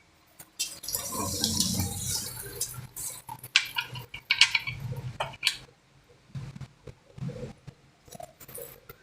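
Hands working with metal tools and car parts during an oil filter change: scraping and rattling, then a run of sharp clicks and clinks, with a few softer knocks toward the end.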